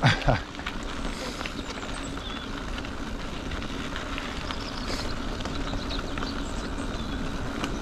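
Mountain bike rolling over a loose gravel track: a steady rumble of the tyres on the stones. A short, loud, falling sound comes right at the start.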